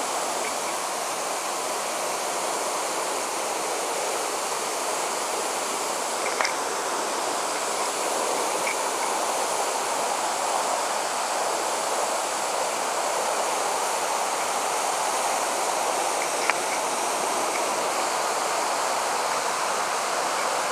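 Steady rush of water running and falling down a rock face, with a couple of brief faint clicks.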